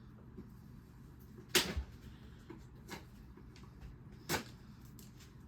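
A few sharp household knocks and clicks over a low steady hum: two loud ones, about one and a half seconds in and just after four seconds, with fainter clicks between. This is someone rummaging for a knife, handling drawers and cupboard doors.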